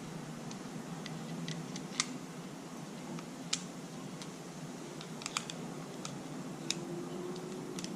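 A few scattered, light, sharp clicks of small metal parts and tools being handled, a handful over several seconds, over a steady faint background hiss.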